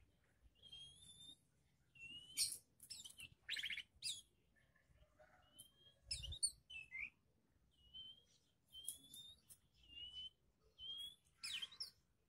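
Songbirds calling: a string of short, rising whistled notes repeated again and again, broken by several harsh, rasping calls.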